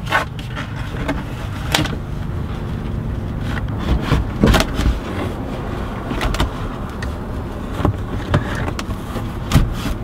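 Scattered knocks and scrapes as a 2004 Mustang GT's front seat belt retractor spool and webbing are worked out through a slot in the plastic rear-quarter trim panel, with a steady low rumble underneath.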